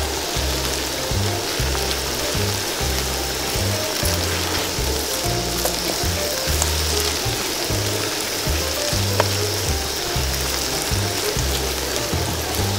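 Whole quail deep-frying in hot oil in a pot, the oil sizzling and bubbling steadily. Background music with a rhythmic bass line plays over it.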